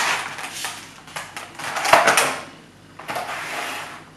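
Clear plastic blister packaging being pulled open and handled, crackling loudly at the start and again about two seconds in, with a few sharp clicks as the parts in the tray shift.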